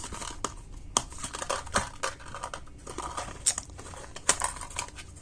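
Hands handling a speed-cube box and its packaging: an irregular string of sharp clicks and taps mixed with crinkling, with a few louder knocks.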